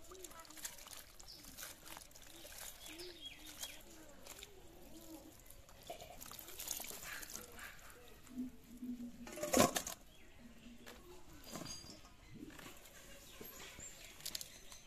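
Sliced brinjal being washed by hand in a bucket of water, with wet squelches, small splashes and clicks as the pieces are squeezed and handled. A single sharp knock about ten seconds in.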